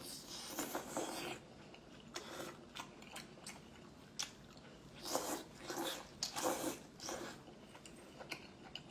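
A person biting and chewing food up close to the microphone, with a string of crisp crunches, some in quick clusters and others a second or so apart.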